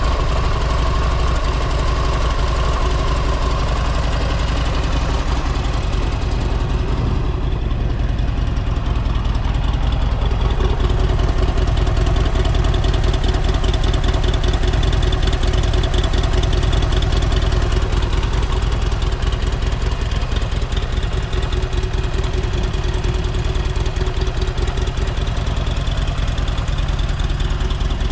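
Buell motorcycle engine idling steadily as it warms up just after a cold start.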